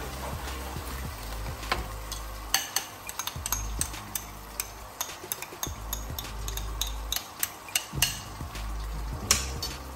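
A cooking utensil stirring sauce in a pan on the stove, knocking and scraping irregularly against the pan, over a low sizzle of the sauce cooking.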